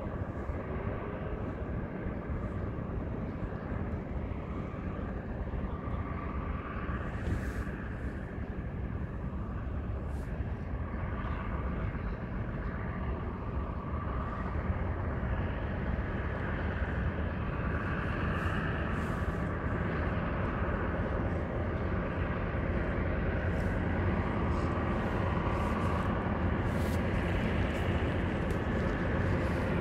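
Heavy truck's diesel engine running at low speed as it hauls a wide building load, a steady low rumble that grows gradually louder as the truck comes closer.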